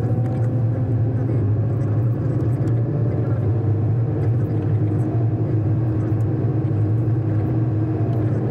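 Car driving along a paved road, heard from inside the cabin: a steady low hum of engine and tyre noise.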